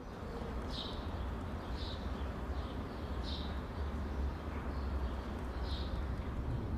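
Outdoor ambience: a bird giving short high chirps about once a second, over a steady low rumble and hiss.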